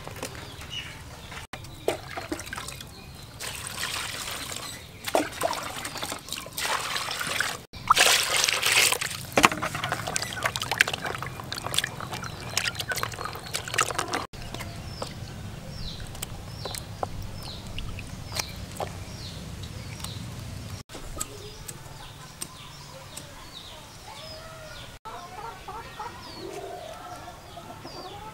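Water splashing and sloshing as small fish are rubbed and washed by hand in a basin, loudest a third of the way in. Chickens cluck and cheep in the background, heard most plainly in the second half.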